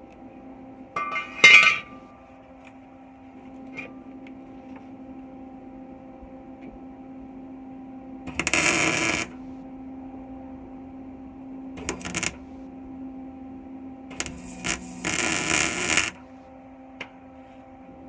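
Short bursts of MIG welding arc crackle, tack-welding the steel tube subframe connector: one about 8.5 s in, a brief one near 12 s, and a longer one around 15 s. A steady electrical hum lies under them, and a sharp metallic clink comes about a second and a half in.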